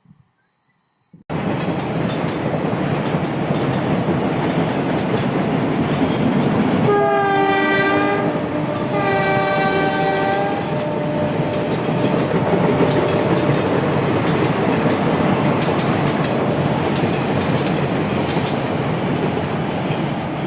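Indian Railways express train running at speed, with a loud, steady rush of wheels on rails. The locomotive's air horn sounds twice, about seven and nine seconds in, each blast lasting about a second and a half.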